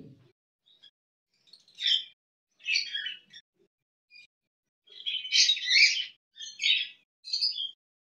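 Budgerigars chirping in a run of short, high-pitched bursts, with the longest and loudest burst about five to six seconds in.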